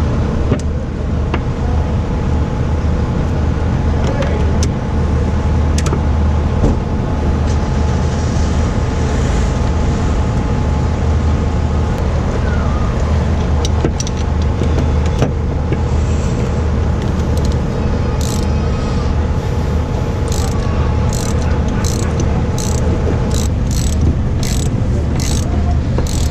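An engine running steadily close by with a deep, even hum. From a little past halfway there is a run of short metallic clicks from a socket ratchet tightening a bolt through a cable's crimp lugs.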